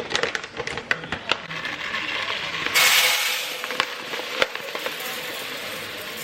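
Kitchen clatter: a quick run of sharp knocks and clicks of utensils and dishes, then about three seconds in a loud hiss that slowly fades.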